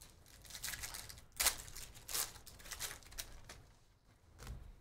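Foil wrapper of a Donruss basketball trading-card pack being torn open and crinkled, in a run of crackling rips with the sharpest about one and a half and two seconds in.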